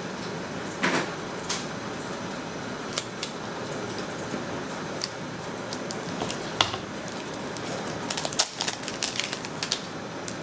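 Hands handling a cardboard phone box and its plastic-wrapped insert: scattered taps, scrapes and crinkles, busiest near the end, over a steady hiss.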